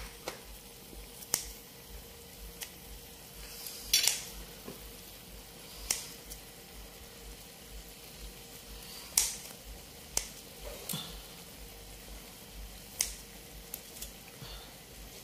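Kitchen scissors snipping a piece of grilled pork held in metal tongs: a dozen or so sharp metallic clicks at irregular intervals, the loudest about four and nine seconds in, over a faint simmer from the pan.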